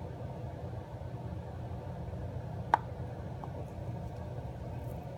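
Steady low mechanical hum with faint steady tones, and one sharp click about two and three-quarter seconds in.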